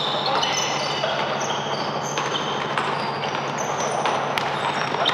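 Basketball being dribbled and bounced on a hardwood court, with sneakers squeaking in short high chirps and a steady background din of the gym.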